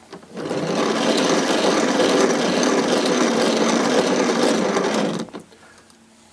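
Hand-cranked Williamson Kinematograph wooden cine camera of about 1909 running, its crank driving the film mechanism with a fast, even run of mechanical clicking. It starts just after the beginning and stops abruptly about five seconds in.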